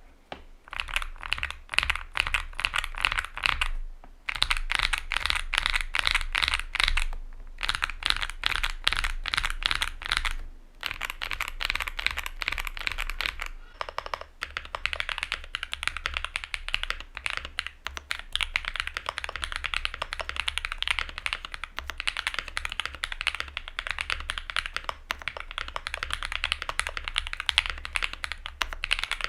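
Fast, steady typing on a Luminkey65 custom mechanical keyboard with an FR4 plate and lubed, filmed switches: a dense run of bright key clacks. It is broken by short pauses about 4, 7, 10 and 14 seconds in.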